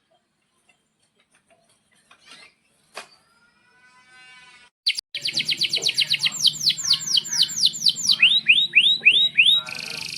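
Domestic canary singing. After a few faint chirps, a loud song starts about halfway in: a fast trill of repeated high notes, about five a second, then slower rising notes and a short harsh buzz near the end, over a low hum.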